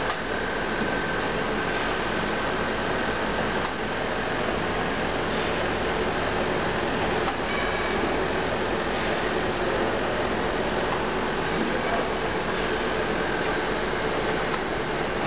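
Muller Martini Corona perfect binding line running: a steady, even machine noise with a faint constant whine.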